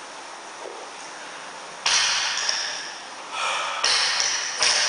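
A 100 kg barbell power clean being lifted: over a steady hiss, a sudden loud burst of noise comes about two seconds in, then more sudden bursts near the end.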